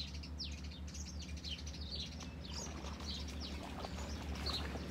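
Birds chirping: a steady run of short, high chirps that slide downward, several a second, over a steady low rumble.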